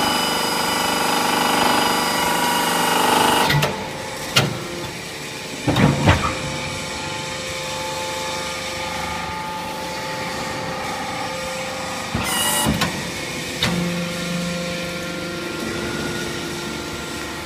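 Hydraulic metal scrap baling press running with a steady hum and whine. About three and a half seconds in its note drops. Sharp knocks and clanks follow, a cluster around six seconds and more later on.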